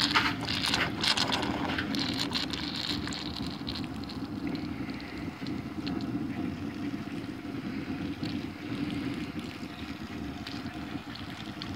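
A propane-fired copper monotube boiler spitting water and steam out of an open valve: a steady rushing hiss with uneven sputters, sharpest in the first few seconds. The uneven flow is the sign of a monotube that is still heating up and open to the atmosphere, where its steam production is unsteady.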